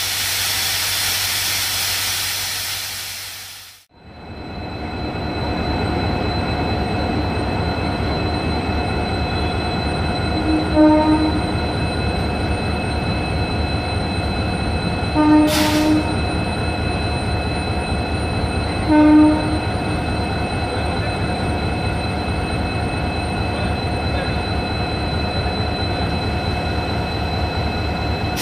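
Diesel locomotives idling at a platform: a steady engine rumble with a constant whine, interrupted three times by short horn toots. A loud hiss of air fills the first few seconds and cuts off abruptly.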